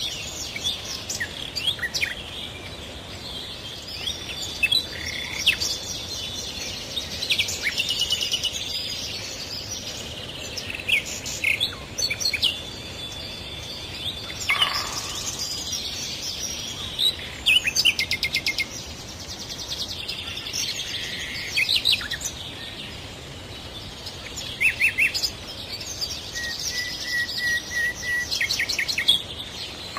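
Birdsong: several birds singing and calling, with many short chirps, whistled glides and quick trills, over a faint steady hiss.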